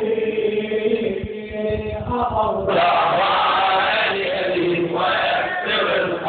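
Men's voices chanting an Arabic Shia mourning lament: a single voice at first, then many voices together, louder, from just under three seconds in.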